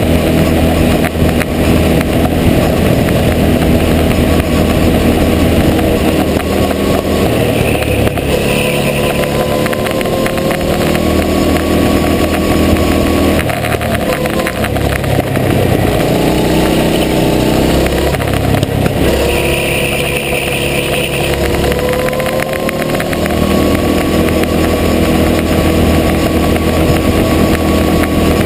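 Go-kart engine running flat out on track, heard on board, its note rising and falling repeatedly with throttle through the corners.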